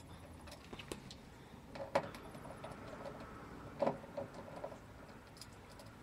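Faint ticking and clicking of a T20 Torx screwdriver working the door-latch screws out of a washing machine's front, with a few sharper metallic clicks about a second in, at two seconds and near four seconds.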